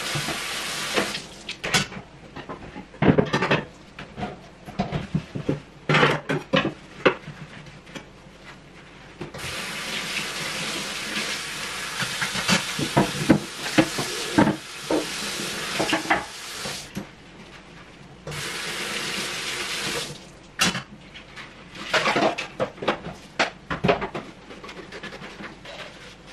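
Kitchen tap running into a sink in spells of several seconds, turned off and on again, with clatters and knocks of kitchenware being handled between the spells.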